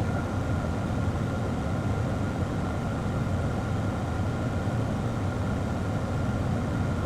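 Hot air rework station blowing: a steady rushing of air with a faint high whine, which starts abruptly and cuts off suddenly.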